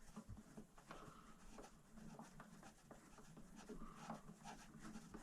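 Faint scratching and light irregular clicks of small hardware being handled and fitted.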